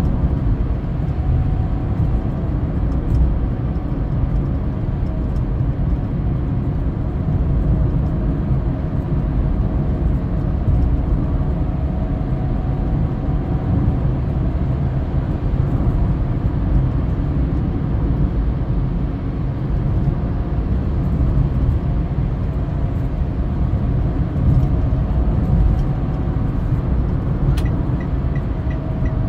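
Car driving at steady highway speed, heard from inside the cabin: a constant low rumble of tyre and engine noise. Near the end a click is followed by a faint, even ticking.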